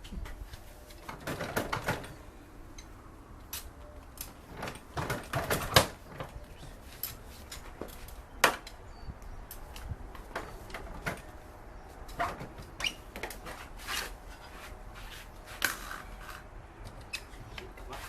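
Irregular clicks, knocks and clunks with short stretches of scraping and rustling, from a mobility scooter's seat being worked loose from its front latch and lifted off.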